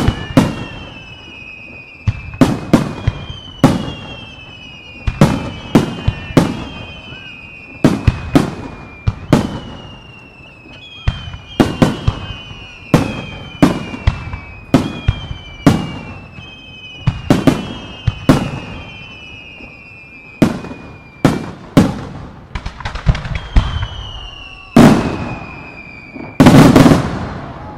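Aerial fireworks shells bursting in rapid succession, sharp bangs about one or two a second and often in pairs. Many come with whistles that slide down in pitch. A louder, denser cluster of bursts comes near the end.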